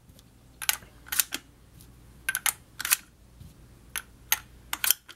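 Sharp clicks of plastic dummy shells being pushed one after another into the tube magazine of a Derya Lion X4 Tactical semiautomatic shotgun through the loading port under the receiver. The clicks come in small groups of two or three, about ten in all.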